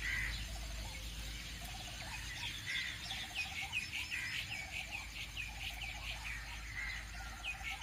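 Birds chirping, with many short, quickly repeated high chirps. A lower series of short calls comes in about two seconds in and stops about six seconds in.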